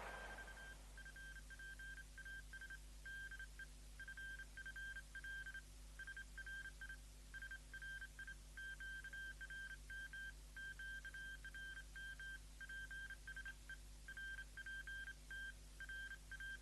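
Faint electronic beeping at one high pitch, broken into irregular short and long pulses like Morse code, over a low steady hum.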